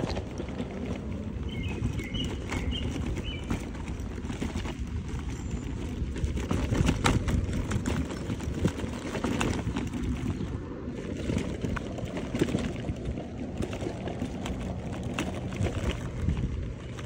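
Shared electric scooter rolling over bumpy park grass: a steady rumble from the wheels and deck, with frequent small rattles and knocks, and wind on the microphone. A few faint bird chirps come about two seconds in.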